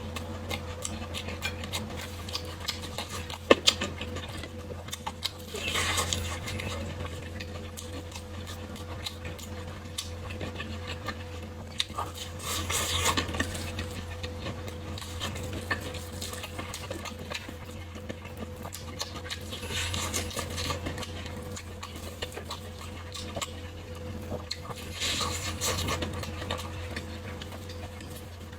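Close-miked eating sounds: chewing, with several longer noisy bursts of eating a few seconds apart, and scattered clicks of utensils on a dish.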